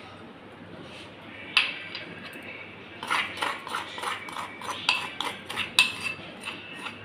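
A spoon scraping the inside of a clay bowl in quick repeated strokes from about three seconds in, emptying spice mix into a pot. One sharp clink comes before it, about a second and a half in.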